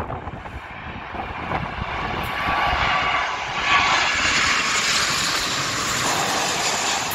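Virgin Atlantic Boeing 787 twin-engine jet airliner passing low overhead on final approach with its gear down. The engine roar builds to a peak about four seconds in and holds, with a faint whine in it.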